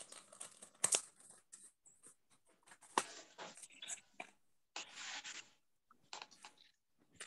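Faint scattered clicks and rustling or scraping noises, with a short hiss about five seconds in.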